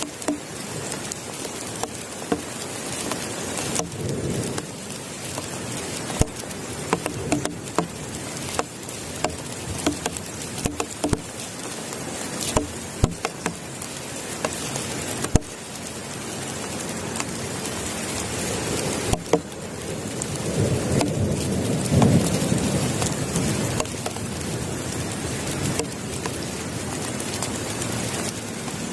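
Heavy rain falling steadily, with many sharp drop impacts striking a nearby surface. A low rumble of thunder swells up about twenty seconds in and fades again.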